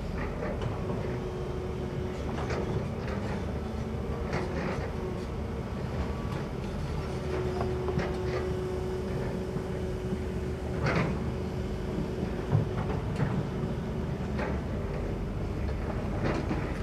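Kobelco SK200 long-reach excavator working, its diesel engine running steadily under a thin hydraulic whine that strengthens for a few seconds around the middle. Scattered knocks and clanks sound over it, the loudest a little past halfway.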